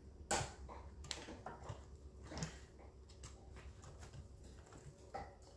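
Scattered small clicks and knocks of needle-nose pliers working on the wiring and plastic handle housing of a Stihl MS 250 chainsaw, the sharpest about a third of a second in. Behind them, crunching and munching of a dog chewing on a toy.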